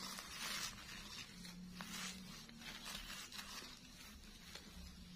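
Electric clothes iron sliding back and forth over layered plastic sheeting, a faint scraping rustle with each of several strokes.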